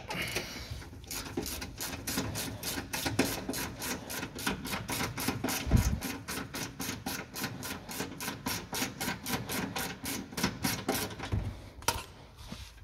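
Ratchet wrench with a 17 mm socket clicking steadily, about four clicks a second, as a suspension control-arm bolt is backed out. A dull knock about six seconds in, and the clicking stops near the end.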